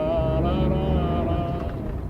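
Music: a sustained, wavering melodic line over a steady low drone.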